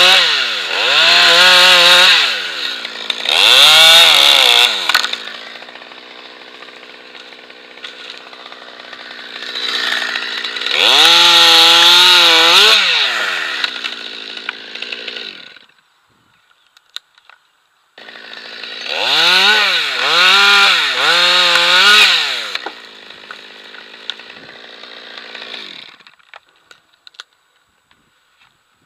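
Stihl chainsaw cutting beech limbs: several bursts at high revs, the pitch sagging and recovering under load, with the engine dropping back to a steady idle between cuts. It cuts off abruptly about 16 seconds in, picks up again two seconds later, and stops about 26 seconds in.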